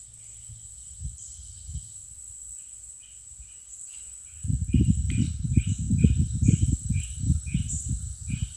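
Insects calling steadily, with a thin high drone and a row of short repeated chirps. About halfway in, a loud, choppy low rumbling starts and runs for several seconds.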